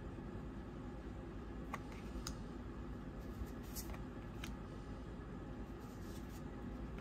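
Tarot cards being handled during a flip-through: a few light clicks of cardstock between about two and four and a half seconds in, over steady low room noise.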